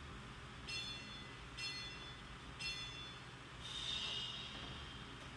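Interval timer countdown beeps: three short high-pitched beeps about a second apart, then one longer beep, marking the switch to the next exercise interval.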